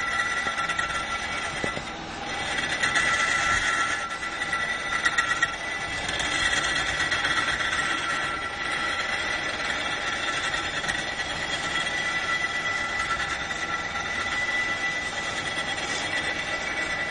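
Lathe spinning a ball of pink rock salt while a hand-held tool scrapes it into shape: a steady high whine with grinding noise, growing louder for a second or two at a time.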